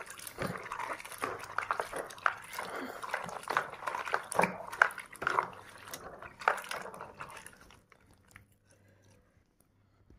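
Soaked pinto beans rubbed by hand in water in a plastic bowl to loosen their skins: water sloshing and beans rubbing and clicking against each other, going quiet about eight seconds in.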